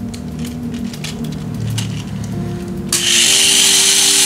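Light plastic clicks from handling the Mini 4WD car. About three seconds in, its small electric motor switches on and runs at full speed: a loud, steady, high-pitched whirr with a gear whine.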